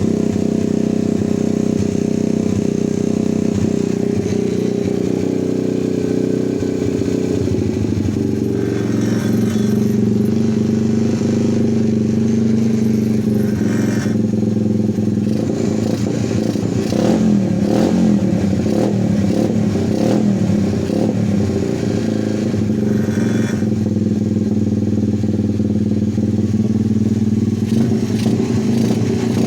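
125cc pit bike's single-cylinder four-stroke engine running, its note dropping about seven seconds in and the revs wavering unevenly through the middle.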